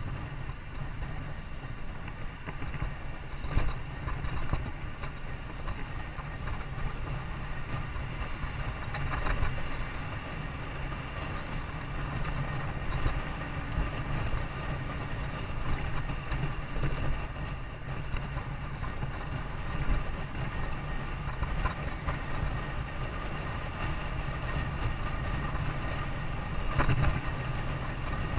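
A vehicle running steadily, heard as a constant low rumble, with a few short knocks along the way.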